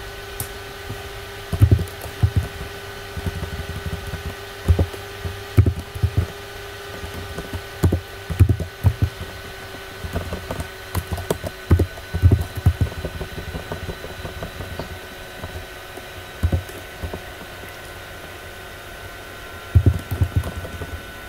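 Irregular keystrokes on a computer keyboard, typed in short clusters with pauses between, over a steady faint electrical hum.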